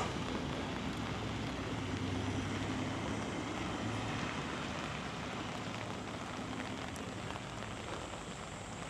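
Monsoon rain falling steadily, an even hiss with no breaks, with a faint low hum underneath.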